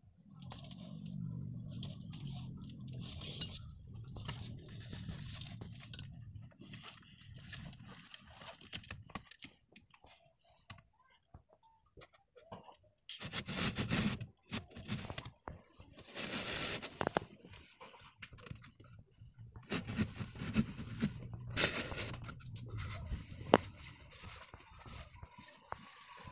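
Irregular scraping, crackling and rustling noises close to the microphone, with a low hum underneath for the first several seconds and again near the end.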